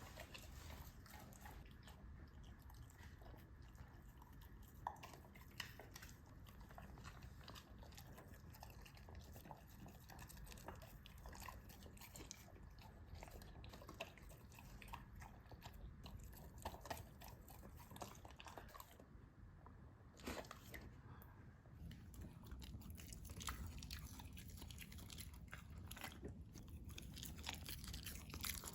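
Large dog eating its dinner, faintly chewing and crunching food with many small bites.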